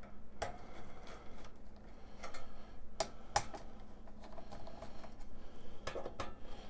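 Irregular light clicks and taps of a nut driver and small screws against the sheet-metal back cover of a digital instrument cluster as the case screws are taken out, the sharpest around three seconds in and a pair near the end.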